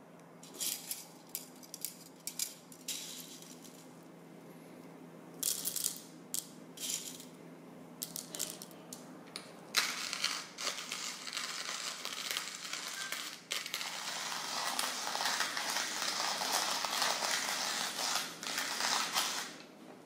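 Roasted coffee beans dropped by hand into a hand-crank coffee grinder, clicking and rattling in scattered bunches. About ten seconds in, the grinder is cranked and crushes the beans with a continuous gritty crunching that stops just before the end.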